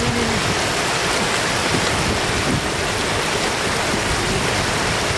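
Shallow floodwater rushing steadily over the edge of a paved road.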